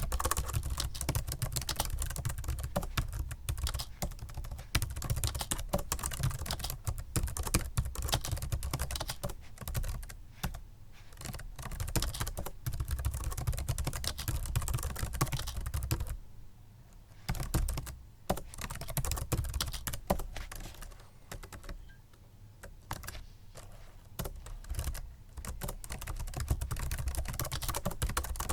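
Steady, fast typing on a Microsoft Sculpt Ergonomic membrane keyboard: a dense run of soft key clicks, with a short break and a quieter, sparser stretch in the middle.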